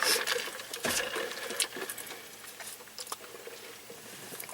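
Close-up eating noises: chewing and soft wet mouth sounds with scattered small clicks and crinkles, and one sharper tap about a second in.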